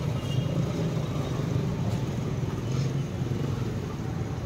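Steady low drone of engine and road noise heard inside a moving car's cabin.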